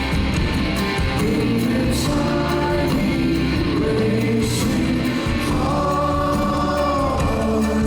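Live rock band performing, with sung vocals and layered backing voices over the band; a long held vocal note near the end.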